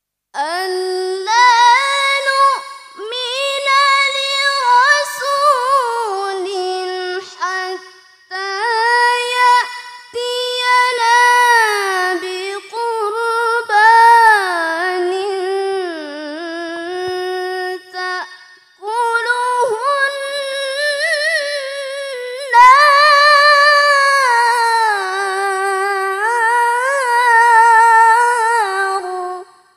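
A woman reciting the Quran in the melodic tilawah style, a long ornamented phrase of gliding held notes with brief breath pauses about a quarter and two-thirds of the way through.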